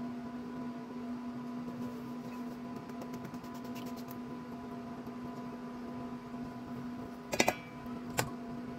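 A wire whisk clinks sharply against a stainless steel mixing bowl twice, about a second apart near the end, as eggs are beaten into chocolate brownie batter. A steady hum runs underneath.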